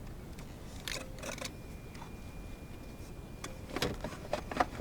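Scattered handling clicks and light knocks around the car, with a cluster of sharper clicks and knocks near the end. A faint steady high tone sounds through the middle.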